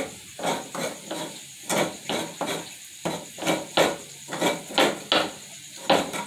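Coconut flesh being scraped out of a half shell over a plate by hand, in short scraping strokes about three a second, somewhat irregular.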